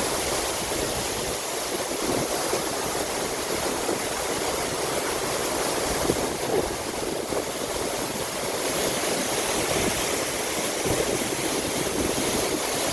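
Waterfall pouring steadily: a continuous, even rush of falling water.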